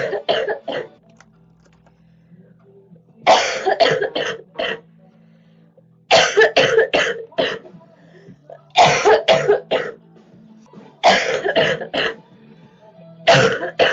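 A girl coughing in repeated fits, each a quick run of three to five coughs, coming about every two and a half seconds.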